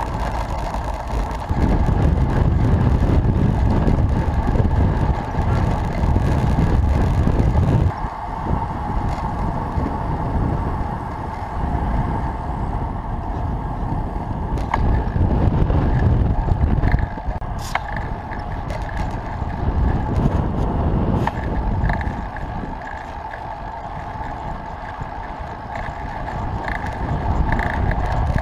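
Wind buffeting the microphone of a camera on a moving road bike, over the rolling rumble of the tyres on the road surface. The low rumble is heaviest in the first several seconds, on brick paving, and eases after that, with a few faint clicks later.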